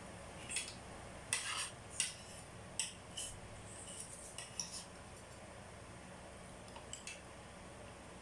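Cutlery clinking and scraping against a plate while eating baked spaghetti: a series of short, sharp clicks, most of them in the first five seconds, with one more near the end.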